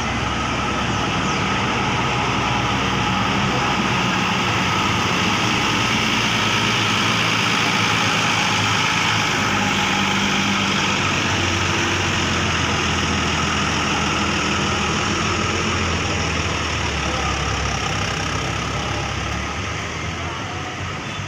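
Large bus diesel engine running close by, a steady low rumble under a dense mechanical noise as the bus moves off.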